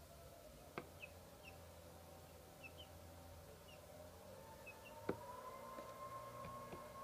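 Faint short peeps from young chickens, scattered throughout, with two sharp taps, the louder one about five seconds in. A faint steady whine starts about four seconds in.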